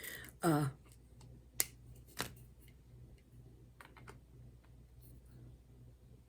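A few light, scattered clicks and taps from hand crafting work, with a short falling vocal sound about half a second in.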